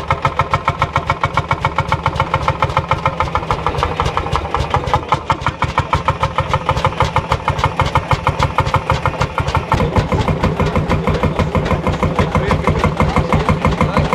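Vintage tractor engine running at a slow, even chug, with rapid regular beats throughout; its low thump gets louder about ten seconds in.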